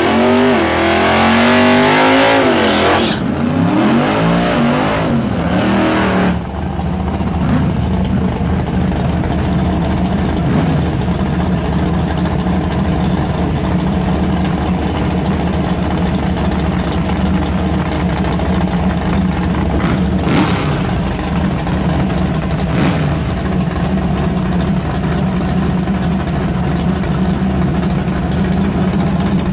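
Chevrolet Camaro drag car's engine revved hard in rising and falling sweeps for about six seconds, then settling into a steady idle with a deep drone. Two short sharp sounds come about twenty and twenty-three seconds in.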